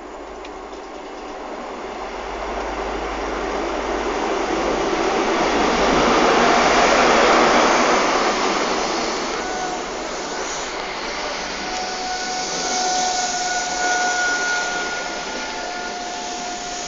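A train approaching and running past close by: its noise builds to a peak about seven seconds in as the front draws level, then eases, with steady high-pitched tones coming in from about ten seconds in.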